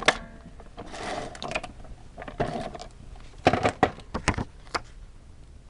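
Paper and crafting tools being handled on a work table: a click at the start, two short paper rustles, then a quick cluster of sharp clicks and taps about three and a half seconds in.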